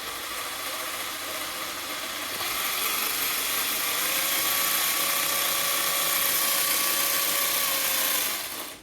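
Electric motor of a Tamiya Bruiser RC chassis driving its drivetrain through the repaired three-speed gearbox, giving a steady whirring gear whine. It comes up at once, grows a little stronger two to four seconds in, and stops shortly before the end.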